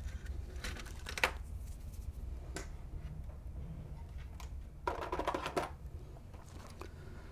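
Faint clicks and light plastic rattling as screws are taken out of a toy remote-controlled car and small parts are handled. A few sharp clicks are spread through, and a brief rattling cluster comes about five seconds in, over a steady low hum.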